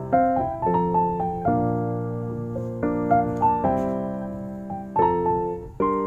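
Background piano music: notes struck one after another in a gentle melody over sustained chords, each note fading after it is struck.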